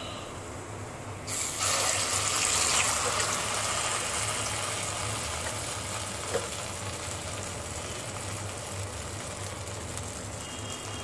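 Vada batter dropped into hot oil in a kadai, sizzling: the sizzle starts suddenly about a second in, is loudest at first, then settles to a steadier sizzle. A single short click about six seconds in.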